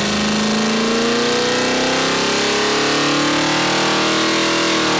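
355-cubic-inch small-block Chevy V8 pulling under load on an engine dyno, sweeping from 2500 toward 4800 rpm, its pitch climbing steadily throughout. It runs smooth, like a sewing machine.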